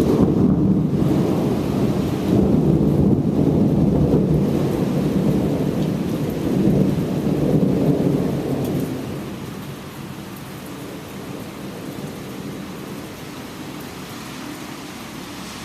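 Heavy thunderstorm: a long, loud rolling rumble of thunder over steady rain, fading away about nine seconds in and leaving the hiss of rain.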